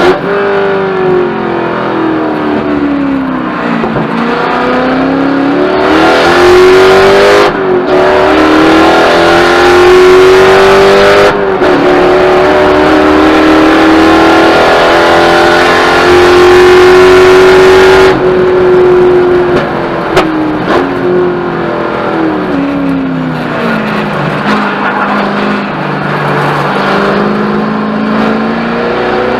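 Corvette V8 race engine heard from inside the cockpit at race pace. Revs fall off at first, then climb with two brief breaks for upshifts to a long steady run at full throttle, fall away again, and start climbing near the end.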